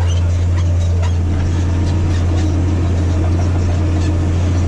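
Massey Ferguson 8210 tractor engine running steadily under load with a deep, even drone while pulling a disc harrow through a mustard cover crop, with faint scattered clicks and rattles.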